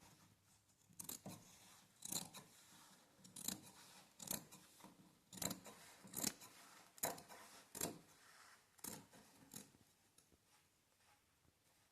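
Hand staple gun firing staples to fix the table cloth under the corners of the bed: about a dozen sharp clacks, roughly one a second.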